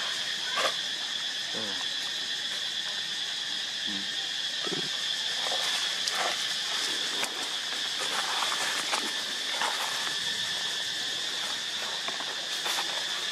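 Steady high-pitched drone of insects, unchanging throughout, with a few brief faint voice-like calls.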